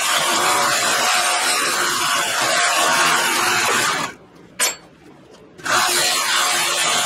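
Steel slip joint pliers being ground against the abrasive belt of a small benchtop belt sander, cleaning them up. The grinding stops for about a second and a half a little past halfway, with one short click, then starts again.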